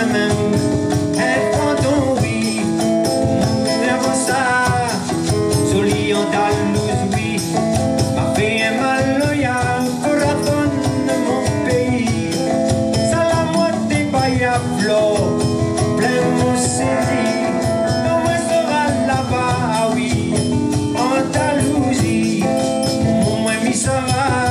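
A live band playing: drum kit, congas, electric guitar, bass and keyboard, with singing.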